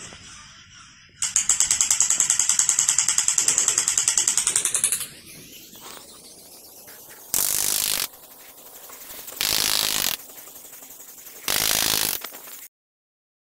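Battery-operated crawling Spider-Man toy soldier with a rifle, its electronic machine-gun effect rattling rapidly for about four seconds and ending in a rising sweep. Three short bursts of noise about two seconds apart follow.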